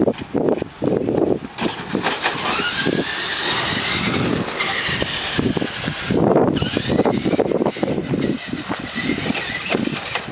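Electric motor of a battery-powered remote-control truck whining, rising in pitch as it speeds up, twice, over a rough crackling noise.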